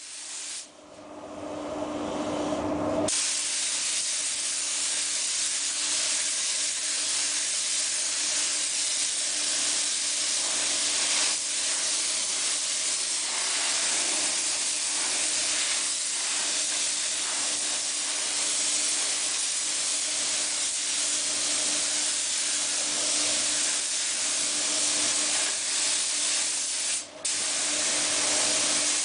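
Compressed-air paint spray gun hissing steadily as paint is sprayed onto a car body. The hiss starts about three seconds in and cuts out for a moment near the end. A faint steady hum runs underneath.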